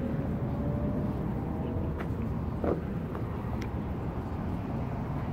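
Steady low rumble of street traffic, with a few faint clicks in the middle.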